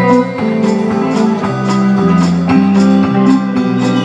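Live band playing an instrumental passage of a country song: guitars holding chords over a steady percussion beat, with no singing.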